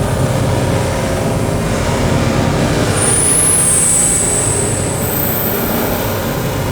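Dense electronic drone from hardware synthesizers: a thick, rumbling low noise texture, with a high whistling tone sliding in about three seconds in and a second, higher tone joining a couple of seconds later.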